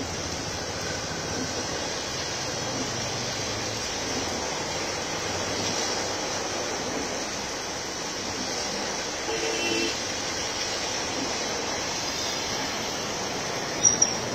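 Heavy rain falling steadily, an even hiss throughout. A short horn toot sounds about nine seconds in, and two brief sharp sounds come near the end.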